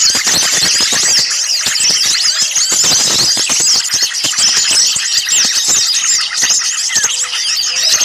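Dense, continuous chorus of many small birds chattering and calling at once, high-pitched and agitated: a noisy bird-luring recording meant to draw small birds in.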